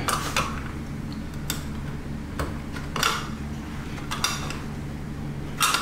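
A handful of sharp, irregular clicks and light plastic rattles as a dishwasher's junction-box cover is worked loose by hand, over a steady low hum.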